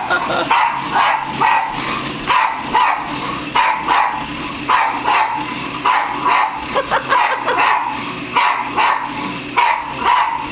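A pug barking over and over in a steady run, about two barks a second.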